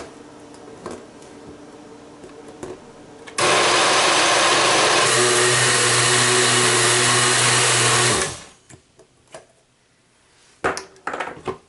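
Osterizer blender motor grinding soaked urad dal into idli batter. It hums at a lower level at first, then runs loud and steady from about three and a half seconds in, and its note shifts about five seconds in. It shuts off and winds down about eight seconds in, followed by a few light knocks.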